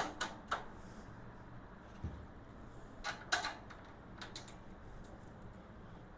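Scattered light clicks and knocks of tool cart parts and bolts being handled during assembly, with a duller thump about two seconds in, over a steady low hum.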